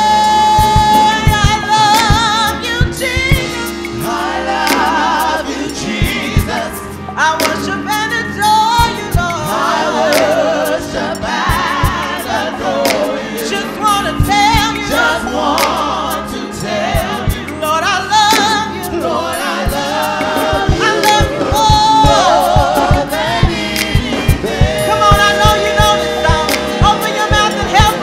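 Gospel praise-and-worship singing: lead vocalists with vibrato and a choir, over live band accompaniment with held low tones and a steady beat.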